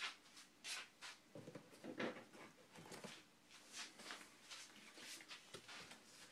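Faint, scattered rustling and soft knocks of paperback cookbook booklets being handled, shuffled and laid down on a stand.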